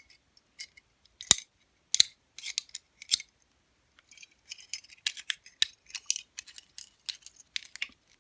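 Metal clicks and snaps from an Eagle double-locking lever padlock being worked by hand. The loudest is a single sharp snap a little over a second in, then a few more clicks, and from about halfway a run of quicker small clicks.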